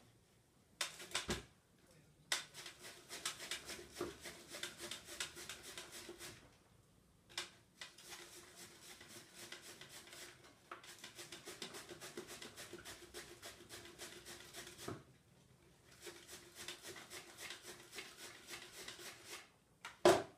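A head of white cabbage rubbed rapidly back and forth across a hand-held board shredder over a plastic bowl, shredding it in quick, even scraping strokes with a few short pauses. There is one sharp knock near the end.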